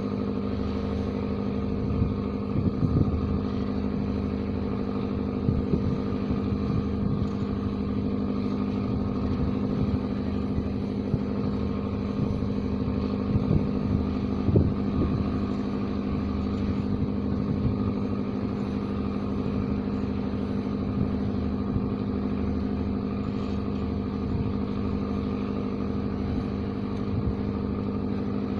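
An engine running steadily at constant speed, giving an even hum, with a few short low thumps about three seconds in and again around fourteen seconds in.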